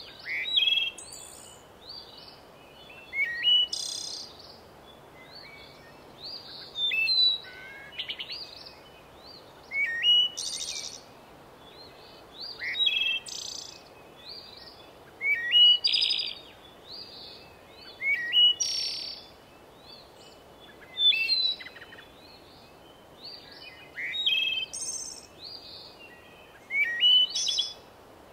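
Birds chirping: short bursts of quick, high, rising chirps, repeated about every three seconds, over a faint steady hiss.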